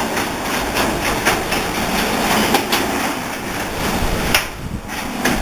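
Sectional garage door moving along its metal tracks under a Genie opener: a steady rattling noise with irregular sharp clicks throughout.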